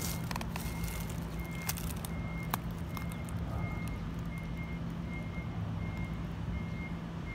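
A vehicle's reversing alarm beeping steadily, about two short high beeps a second, over a low steady engine hum. A few sharp clicks come in the first couple of seconds.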